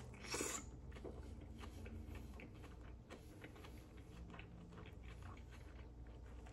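A person biting into a turkey-and-cheese burger about half a second in, then chewing it steadily: a faint run of small, irregular clicks.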